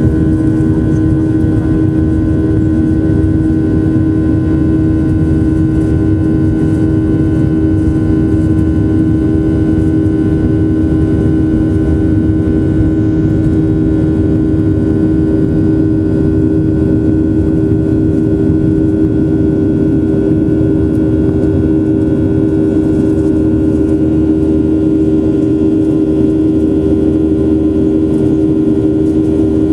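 Boeing 737-800's CFM56 jet engines running at a steady, unchanging level: a loud rumble with a steady hum and a high whine over it.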